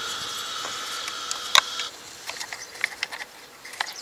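Small clicks and taps of hands fitting plastic parts and hoses in a car's engine bay, with one sharp click about one and a half seconds in. A steady high whine stops about two seconds in.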